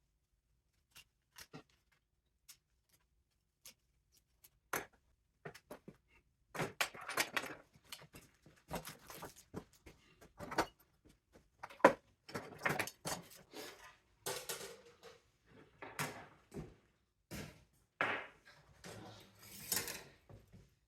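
Hand tools and loose metal and plastic parts clicking, clinking and scraping as a mini split air conditioner is taken apart for scrap. Sparse single clicks at first, then busier bursts of clatter and scraping from about six seconds in.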